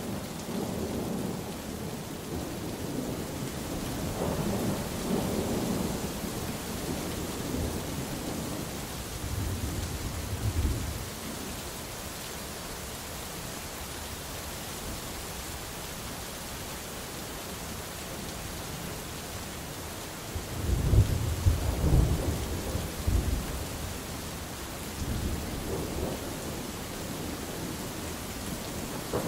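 Steady rain falling, with rolling thunder rumbling several times; the loudest peal comes about two-thirds of the way through, with smaller rumbles earlier and near the end.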